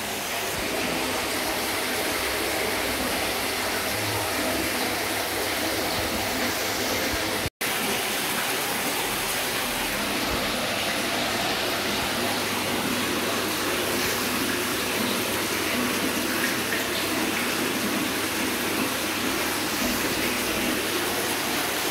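Water running steadily with an even rushing sound, broken once by a split-second dropout about seven and a half seconds in.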